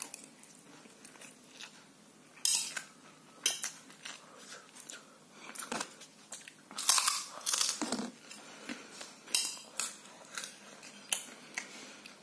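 A person eating close to the microphone: chewing with a dozen or so sharp, irregular crunches, and a fork now and then clinking on a plate.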